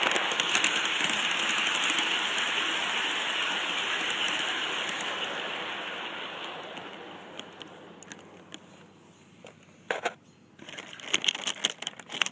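G scale garden-railway train running along its track, its motor and wheels making a steady hiss-like noise that fades out over a few seconds as the train slows to a stop. Near the end come several sharp clicks and knocks.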